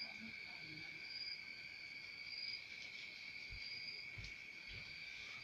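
Insects trilling steadily in the background: one constant high trill, with a second, higher trill coming and going in runs of about a second. A few soft low thumps in the second half.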